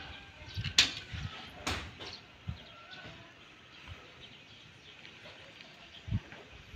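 Faint outdoor background with two sharp knocks about a second apart near the start and a short low thump near the end.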